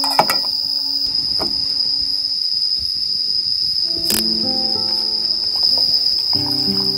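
Crickets trilling steadily and without pause, with a few sharp clicks and knocks over it.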